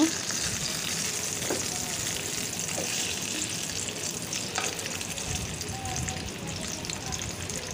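Two whole tilapia shallow-frying in oil in a frying pan, sizzling steadily with a fine crackle, the fish already fried through on both sides.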